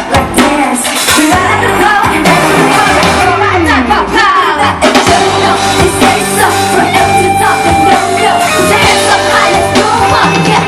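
Loud live pop music played over a PA system, with a singer's voice over the band and a few shouts.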